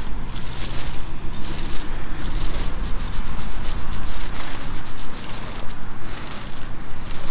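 Gloved fingers rubbing and scraping soil off a worn, freshly dug coin, a rough, scratchy rubbing that goes on in short strokes throughout.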